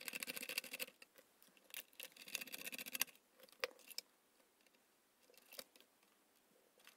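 A screwdriver backing out screws on a mains screw-terminal block: two short spells of faint rapid scraping clicks. These are followed by a few single light clicks as the crimped ring terminals are lifted off.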